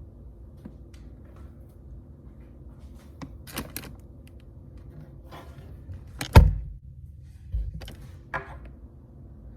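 Scattered knocks and clicks of things being handled, with one loud thump a little past halfway.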